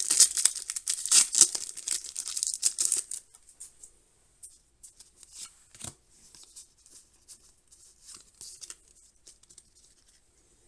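Foil wrapper of a Pokémon card booster pack crinkling and tearing open for about three seconds, then faint rustles and small clicks of the cards being handled.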